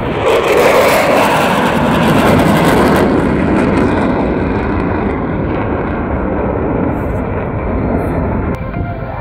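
A pair of Dassault Mirage 2000N jets passing in close formation, their SNECMA M53 turbofan engines giving a loud jet roar. The roar is loudest and hissiest about a second in, then turns duller and slowly fades as they go by.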